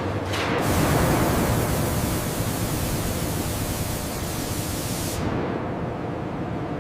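A steady rushing hiss over a low rumble. The hiss comes in about half a second in and its high part drops away about five seconds in, leaving the rumble.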